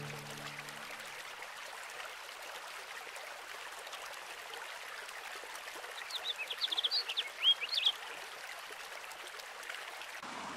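Steady hiss of a running stream, with a bird giving a quick series of short chirps between about six and eight seconds in.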